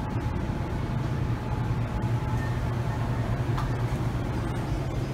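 Shop-floor room tone: a steady low hum under indistinct background noise.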